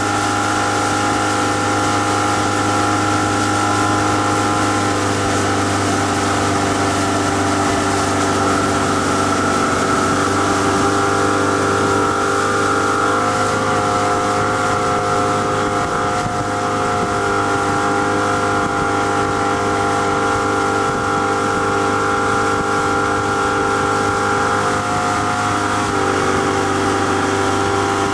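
Motorboat's outboard motor running steadily at towing speed, its pitch shifting slightly a few times, over a steady rush of wind and water.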